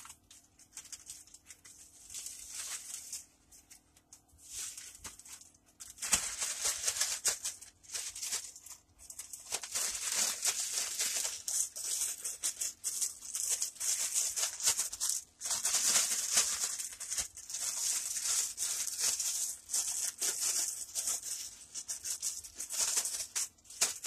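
Chicken tenders being shaken in a plastic zip-top bag of dry coating mix: a rapid crinkly rustle and rattle. It comes in short spells with pauses at first and goes on nearly without a break from about six seconds in.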